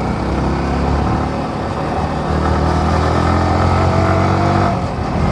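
Yamaha R15 V4's 155 cc single-cylinder engine running while riding. Its pitch rises gradually through the middle, then drops off shortly before the end as the throttle eases.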